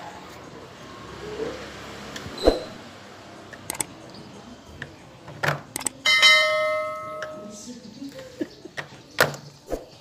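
A pair of clicks, then a bright bell ding about six seconds in that rings for about a second and a half, the sound effect of a subscribe-button animation. Scattered knocks and clicks of handling come before and after it.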